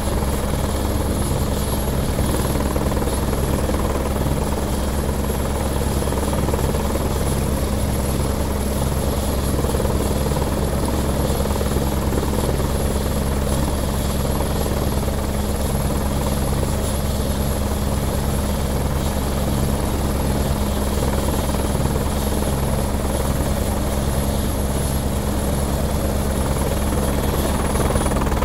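Light turbine helicopter running on the ground with its main rotor turning: a steady low hum and rotor beat under a thin high whine.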